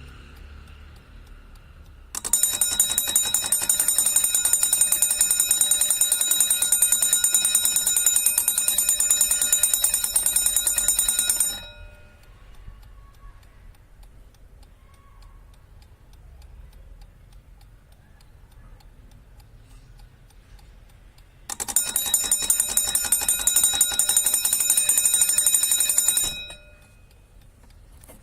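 Vintage 1960s German Peter alarm clock ringing its bell loudly for about nine seconds, then stopping, then ringing again for about five seconds, with the clock ticking faintly in between: the repeat alarm going off a second time.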